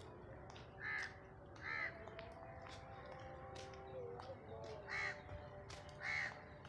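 Crow cawing: four short, harsh caws in two pairs, about a second apart, with the second pair some three seconds after the first, over a faint background of thin whistles and scattered clicks.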